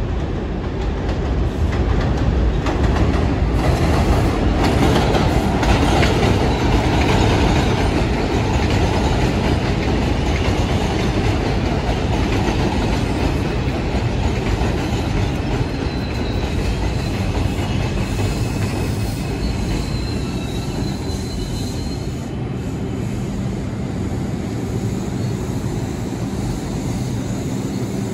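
An R142 New York City subway train running through the station, its wheels clattering on the rails; it is loudest a few seconds in. A faint high wheel squeal comes in around the middle.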